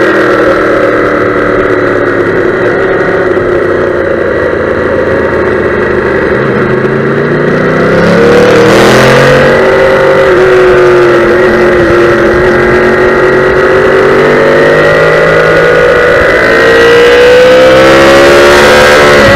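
Yamaha YZF-R1M's crossplane inline-four engine heard from on board at track speed: the engine note drops off, then climbs hard under acceleration about a third of the way in, holds, and climbs again near the end. A short rush of noise comes in with the first hard acceleration.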